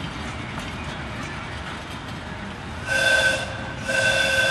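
Narrow-gauge park locomotive running with a steady rumble, then blowing its whistle: a short blast about three seconds in, followed by a longer one that begins near the end.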